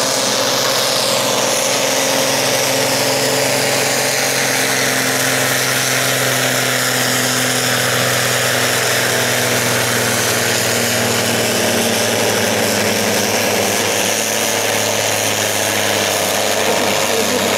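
Ford tractor's diesel engine running hard and steady under load, pulling a tractor-pulling brake sled, its pitch holding level.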